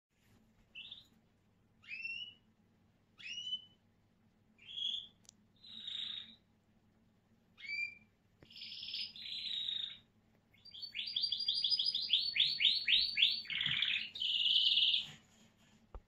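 American Singer canary singing: short separate chirps that glide in pitch, about one a second, then about halfway a continuous song with a fast trill of repeated notes and a buzzy closing phrase that stops near the end.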